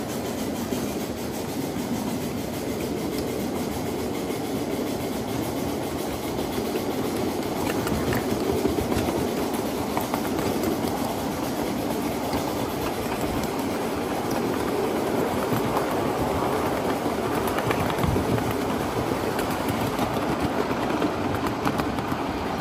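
1/8-scale live steam train running on its track: a steady rumble of wheels on the rails, getting a little louder about eight seconds in.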